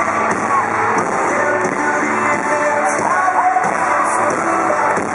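A live pop-rock band with drums playing under singing voices, recorded from among the arena audience.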